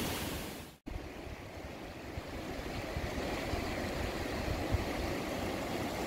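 Rushing water: a waterfall pouring down a rock face, broken off by a sudden cut under a second in, then the steady rush of a fast, shallow mountain river running over stones.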